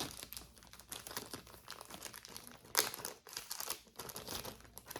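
Packaging crinkling and rustling as jewelry is handled, in irregular crackles with one sharper crackle near the three-second mark.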